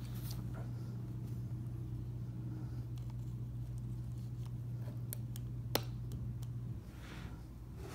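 A steady low hum that cuts off near the end. Over it come a few faint ticks, and a little before the hum stops there is a single sharp click.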